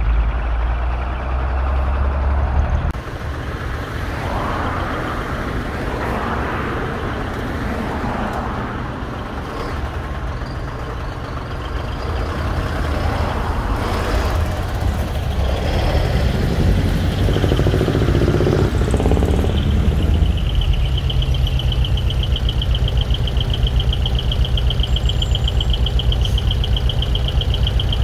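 Decorated heavy trucks with 'mani-wari' split exhaust manifolds running and driving past, making a deep, rapidly pulsing exhaust rumble. A steady pulsing high tone joins in during the last third.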